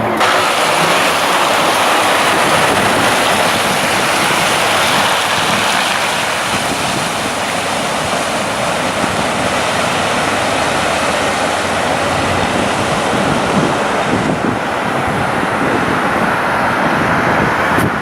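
Steady rushing noise of wind and choppy water.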